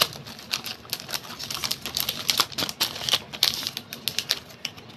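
Clear plastic packaging and a paper sticker sheet being handled and pushed into the pack, making a dense run of quick crackles and crinkles.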